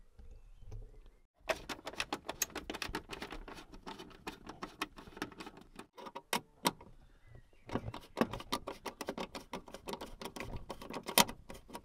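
Rapid plastic clicking and scraping as a tool works at dashboard trim and cable connectors to unclip them. It comes in two runs with a short pause between.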